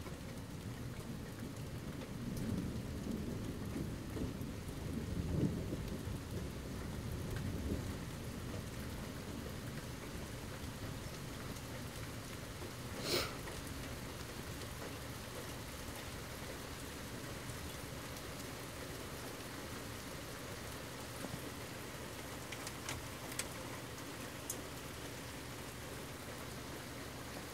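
Steady rain falling, with low thunder rumbling in waves over the first several seconds. A single sharp click sounds about halfway through, and a few faint ticks come near the end.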